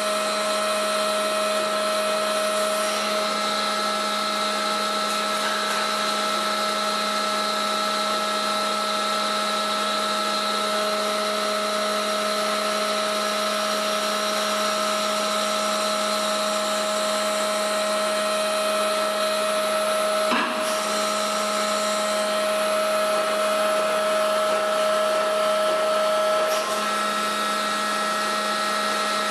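Welding equipment running steadily: a constant machine hum with fixed tones under a broad hiss, with a single sharp click about twenty seconds in.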